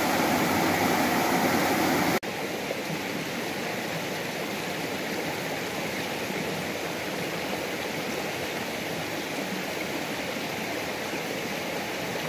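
Steady rushing of flowing river water. About two seconds in it cuts abruptly to a quieter stretch of the same rushing.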